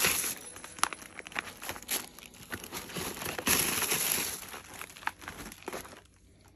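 Pet-treat packaging crinkling and rustling as it is handled and unwrapped, with many small clicks and crackles; loudest about three and a half seconds in, dying away near the end.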